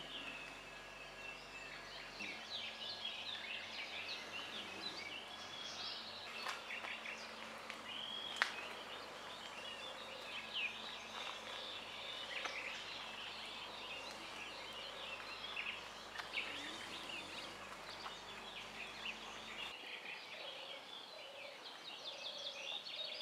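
Many small birds chirping and singing at once, a faint, busy chorus of short calls, with one sharp click about eight seconds in.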